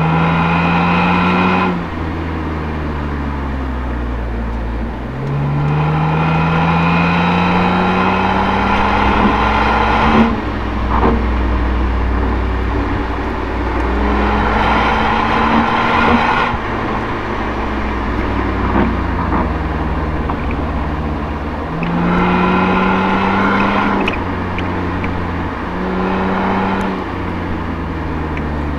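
Toyota Altezza's 1G-FE straight-six with an Apexi exhaust, heard from near the tailpipe, pulling up through the revs about five times. Each climb in pitch breaks off and drops back as the driver lifts or shifts, over a steady low road and exhaust rumble.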